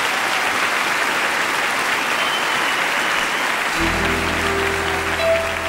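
Audience applauding steadily; about four seconds in, the song's backing music starts under it with held low notes.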